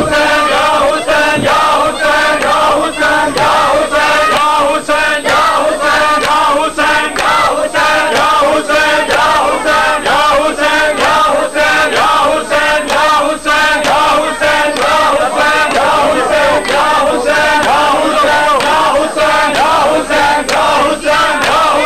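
A group of men chanting a mourning noha together, with a steady rhythm of matam (chest-beating) running through the chant.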